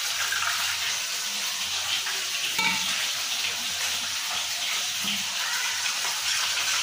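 Steady sizzling hiss of fish frying in mustard oil, with water being poured into a small steel bowl and a spoon stirring in it.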